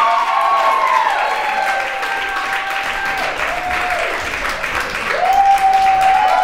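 Audience applauding steadily, with several voices whooping over the clapping.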